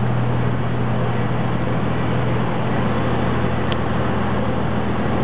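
Road vehicle driving steadily, heard from inside: a constant engine hum under even road and tyre noise, with a short high chirp partway through.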